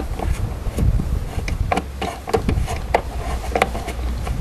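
Screwdriver turning out a tail-light retaining screw: a few light, irregular clicks of metal on the screw and plastic, over a low steady background rumble.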